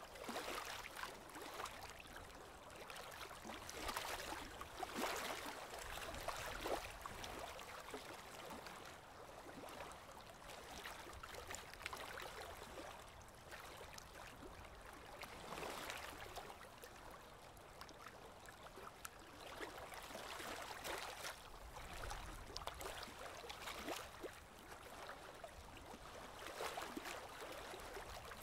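Water in a goldfish aquarium gurgling and trickling, faint, swelling and easing every few seconds with small crackles.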